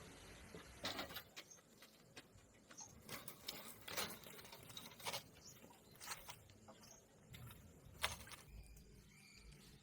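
Faint, irregular clicks and taps, as of small hard objects being handled, with the sharpest about eight seconds in.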